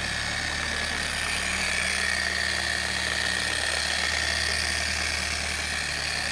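Porter-Cable random-orbital polisher running steadily at a low speed setting with a foam pad on car paint, breaking in the pad with polish: a constant motor hum with a high whirr.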